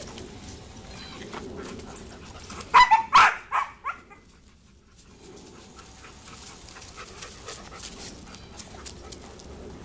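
A dog barks several times in quick succession about three seconds in. Otherwise faint footsteps crunching on a gravel path.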